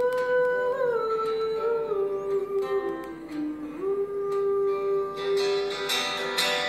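A woman singing long held notes that step down in pitch, over acoustic guitar.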